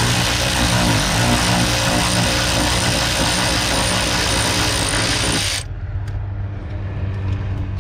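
Loud, steady mechanical running noise that cuts off suddenly about five and a half seconds in. A low hum and a few light clicks remain after it.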